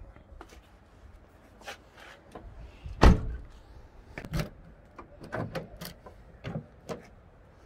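Mitsubishi Lancer Evolution VII car door shut with a single solid thud about three seconds in, followed by several lighter clicks and knocks.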